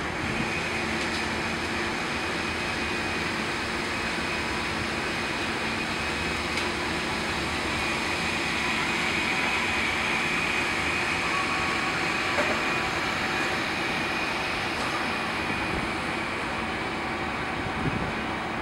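Steady city background hum heard from a high rooftop: a constant hiss and rumble with a few faint steady tones and no distinct events.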